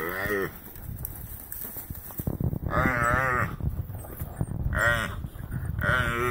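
A gemsbok (oryx) crying out in distress while being attacked by African wild dogs: a wavering, bleat-like bawl repeated about four times, the longest about 3 s in, with scuffling noises between the cries.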